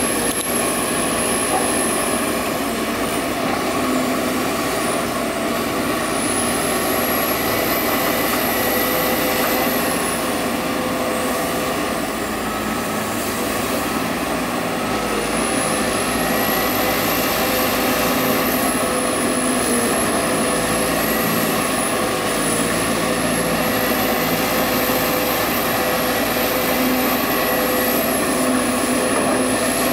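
Sumitomo SH210 hydraulic excavator running steadily at work, with a high-pitched whine that rises and falls in pitch over several seconds.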